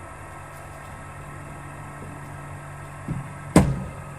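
Steady low hum, then about three seconds in a soft knock followed by a sharp crack of a cricket ball off the bat, a yorker being dug out.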